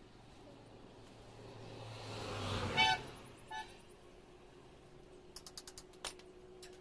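A passing vehicle's engine grows louder, and the vehicle gives two short horn toots, the second briefer, about three seconds in. Near the end comes a quick run of light metallic clicks.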